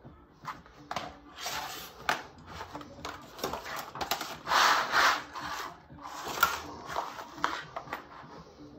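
Plastic cutting mats and templates being handled and slid onto a vinyl plank floor: irregular rubbing and scraping with sharp clicks, loudest near the middle, and a sharp knock about two seconds from the end.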